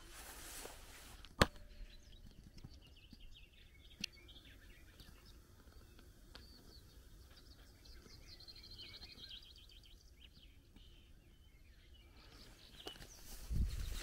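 Songbirds chirping faintly, with a short trill midway, over quiet countryside air. A single sharp click comes about a second and a half in, and footsteps on grass start up near the end.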